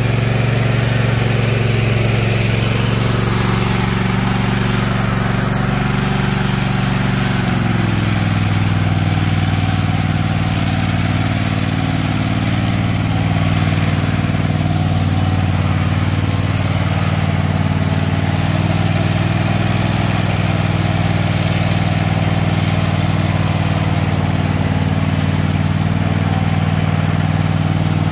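Toro TimeCutter zero-turn riding mower's engine running steadily as the mower is driven across the lawn, its pitch shifting slightly about seven seconds in.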